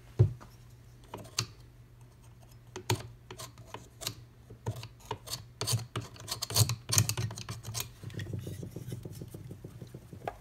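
A screwdriver tip scraping and picking packed dust out of the blades of a wood stove blower's squirrel-cage fan wheel. It makes irregular clicks and scratches, which turn into a quicker run of scraping near the end.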